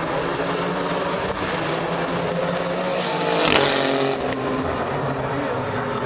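Racing GT car passing at speed, its engine note swelling to its loudest about three and a half seconds in and dropping in pitch as it goes by. Other race car engines run underneath.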